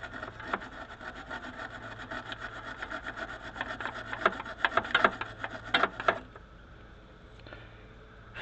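Quick repeated scraping or rubbing strokes with sharp clicks among them, growing louder and then stopping about six seconds in.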